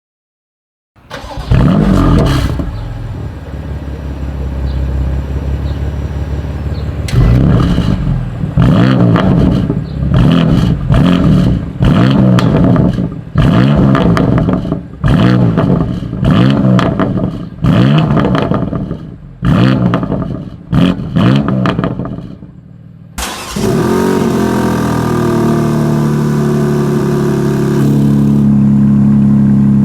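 BMW M2 Competition's twin-turbo inline-six starting with a loud burst about a second in, idling, then revved in a series of about ten quick blips, each dropping back to idle. Near the end the sound cuts to another engine running steadily.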